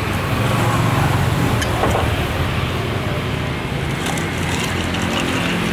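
Steady low rumble of motor traffic on the street, without pause.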